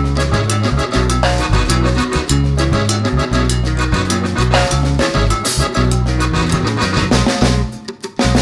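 Salsa music with a steady beat, bass and drums; it breaks off briefly near the end.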